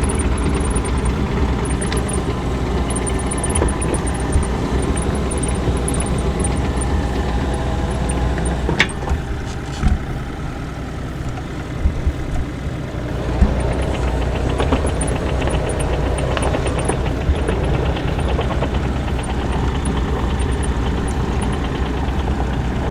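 Bobcat E35 mini excavator's diesel engine running steadily, heard from the cab as the machine is worked, with a couple of sharp knocks along the way.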